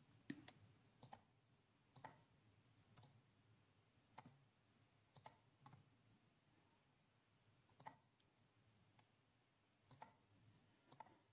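Faint computer mouse clicks, about a dozen at irregular spacing, half a second to a couple of seconds apart, over near silence.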